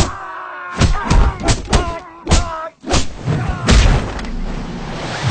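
Fight sound effects: a run of about seven heavy punch and kick thuds, mixed with shouted fighting cries, starting with a long yell that falls in pitch.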